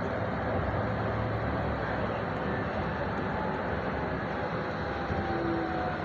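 City tram running, heard from inside the passenger car: a steady rumble of wheels on rails, with a faint whine that falls in pitch near the end.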